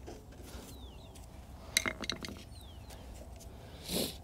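Small metal carburetor parts and screws clinking as they are handled and fitted back onto a Cummins Onan QG 4000 generator. A quick run of sharp clinks comes about two seconds in, and a short soft whoosh comes near the end.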